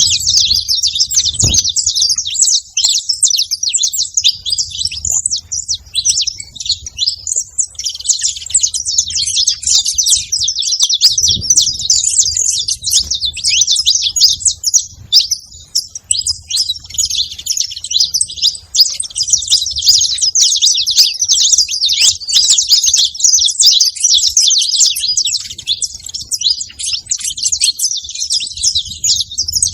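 Saffron finches chirping and chattering, many quick high calls running together almost without a break.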